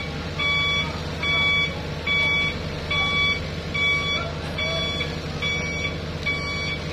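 Vehicle reversing alarm beeping evenly, a little more than once a second, over the steady low hum of diesel engines running.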